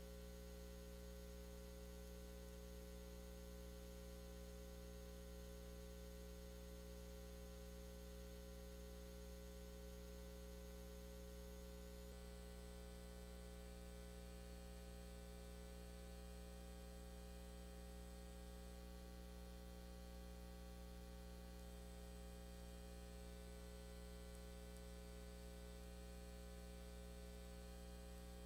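Near silence with a steady electrical hum and a faint high-pitched whine.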